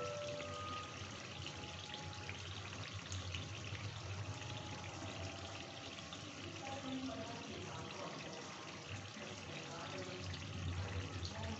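Chicken curry gravy bubbling and sizzling as it simmers in an open steel kadhai, cooking down, with many fine crackles and a low steady hum underneath.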